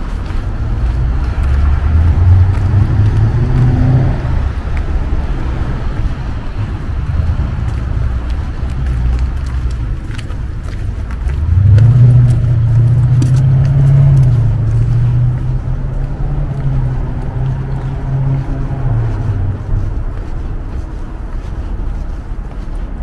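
City street traffic: motor vehicles driving past with a low engine hum, which swells briefly near the start and rises again about halfway through to hold for several seconds before fading.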